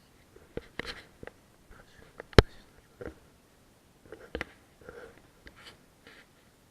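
Scattered small clicks and knocks with some rustling, and one sharp knock a little over two seconds in.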